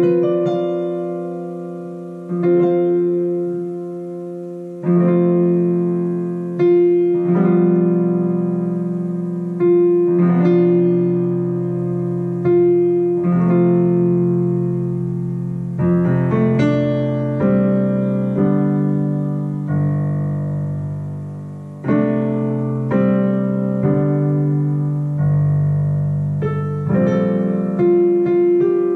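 Digital piano played slowly from sheet music: chords struck about every one to two seconds, each left to ring and fade before the next.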